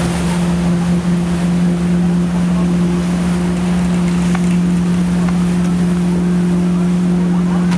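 Motorboat engine running at a steady, unchanging pitch, with wind and water noise.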